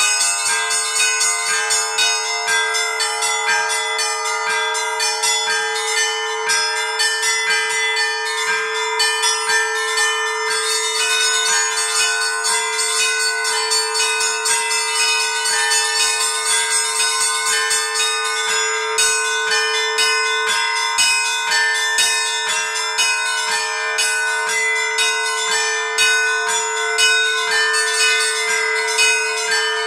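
Seven Orthodox church bells ringing the traditional Easter peal, struck by an automatic electronic bell-ringing system: rapid, overlapping strikes over one steady ringing tone.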